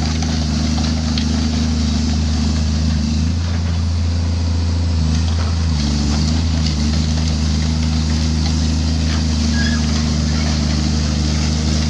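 An engine running steadily under load, a low constant hum whose pitch shifts slightly a few seconds in.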